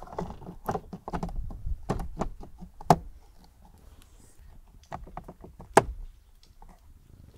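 Hard plastic clicks and knocks from a second-generation Toyota Yaris (Vitz) dashboard cup holder being hooked into its slots in the dash and worked by hand, with two sharper knocks about three and six seconds in.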